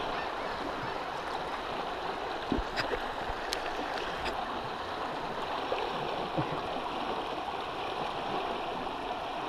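Steady rush of river water flowing and washing past a boat, with a few faint knocks and small splashes between about two and a half and four and a half seconds in.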